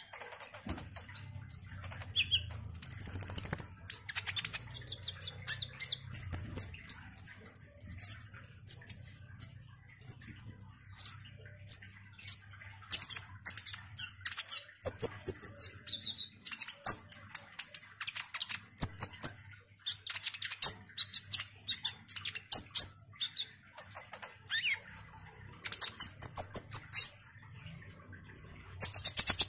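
Male kolibri ninja sunbird singing: bursts of rapid, high, thin chirps, twitters and short trills, with brief pauses between phrases.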